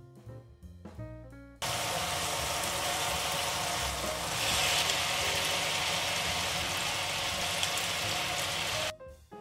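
Jazz background music, then it cuts to hot oil with dried red chillies sizzling in a pan. The sizzle gets louder about four seconds in, as fried diced potatoes are tipped into the oil. The music comes back near the end.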